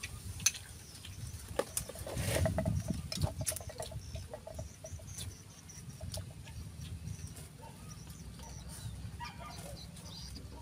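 Chopsticks and spoons clicking against bowls and metal pots as people eat, in scattered light taps, over a low rumble. From about two seconds in, a repeated pulsing animal call sounds in the background for a few seconds.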